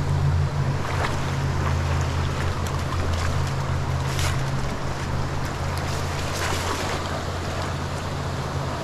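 Rain-swollen creek running fast, a steady rush of water with a low rumble underneath.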